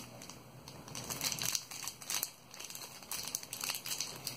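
Foil wrapper of a Pokémon TCG booster pack crinkling in irregular crackles as fingers work at it, trying to tear it open by hand without scissors.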